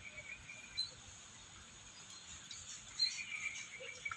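Faint high chirps from a caged pet bird, with a few soft clicks.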